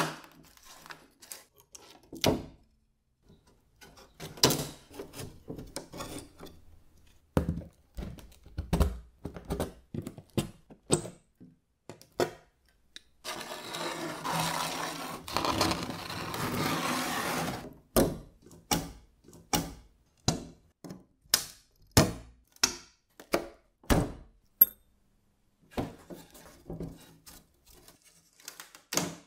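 Worn wooden parts of a 1960s Homas foosball table being handled and knocked: a string of wooden knocks, clicks and taps, with about four seconds of rubbing noise in the middle.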